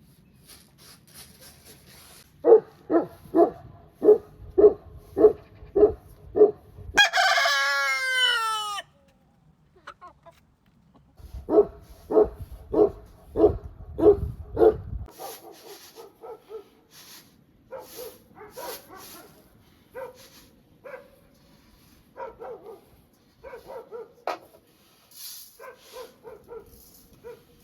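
Farmyard chickens: runs of short, evenly repeated calls, about two a second, and one long rooster crow about seven seconds in. Fainter scattered calls follow toward the end.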